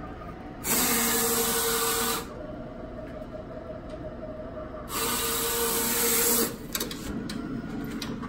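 Roland FJ-50 wide-format printer's sheet cutter running: the carriage draws the cutting blade across the media in two loud mechanical passes. Each lasts about a second and a half, the first about a second in and the second a few seconds later.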